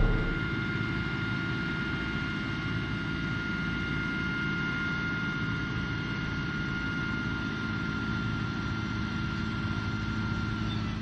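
Steady running noise of a vehicle on the move, with a constant high whine over it; it cuts off suddenly near the end.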